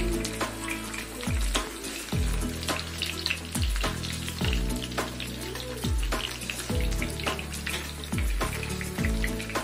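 Oil sizzling and crackling steadily around two whole masala-coated red snappers shallow-frying in a pan, under background music with a steady beat.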